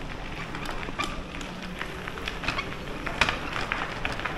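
Wheelchair tyres rolling over a gravel trail, a steady crunch with irregular crackles, a few louder ones about three seconds in.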